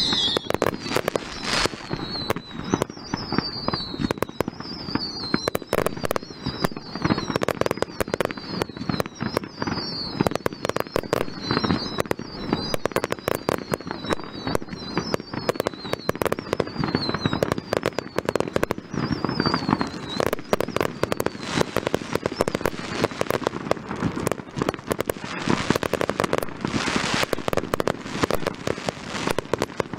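Fireworks display: a dense, continuous barrage of bangs and crackling bursts. A run of short falling whistles, about one a second, sounds over it through the first two-thirds.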